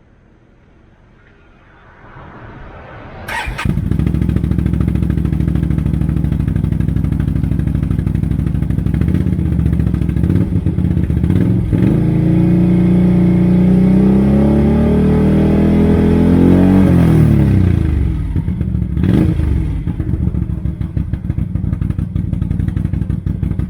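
Can-Am Outlander 650 ATV's V-twin engine cranked and catching about three seconds in, then idling through its exhaust. It is revved up slowly and let fall back, with a couple of short blips of the throttle after that.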